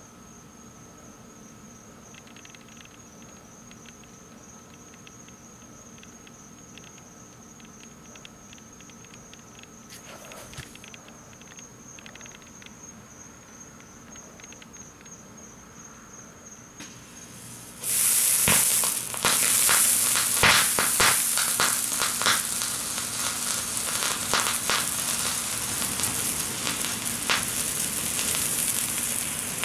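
An antimony sulfide sandfire that is barely burning, with only a few faint crackles under a steady insect trill. About 18 seconds in it flares up suddenly into a loud, continuous hissing and crackling burn.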